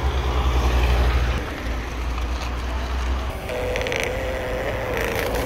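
A low rumble, then from about three and a half seconds in a portable thermal receipt printer whirring steadily as it feeds out a printed speeding ticket.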